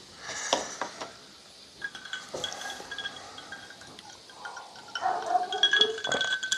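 Clinks of a small metal tea strainer and a drinking glass on a wooden table, then sips and swallows of fizzy homemade spruce soda. The clinks come in the first second, and the drinking noises are loudest near the end.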